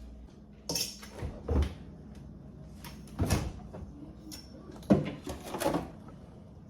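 A refrigerator being taken apart for cleaning: a series of irregular knocks and clunks as its shelves, drawers and door are handled, about five bursts over several seconds.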